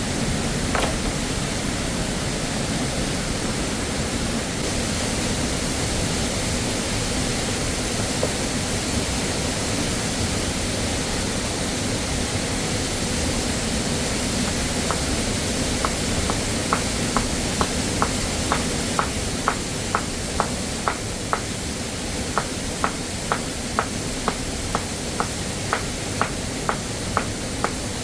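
Steady rushing of a waterfall. From about halfway through, a regular short ticking, about two ticks a second, runs over it.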